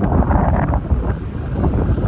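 Strong wind buffeting the microphone: a loud, gusty low rumble that swells and dips.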